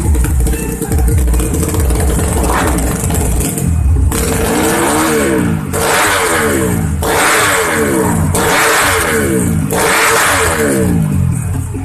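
Yamaha Jupiter Z drag bike's single-cylinder four-stroke engine, bored to 130 cc, running on a tune-up. It runs low and steady at first, then is revved in about five quick throttle blips, each rising and falling, from about four seconds in.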